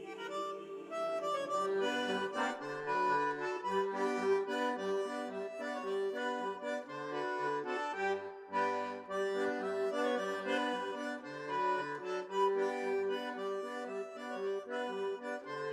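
Accordion music: a melody of held notes over short bass notes and chords alternating in a steady rhythm.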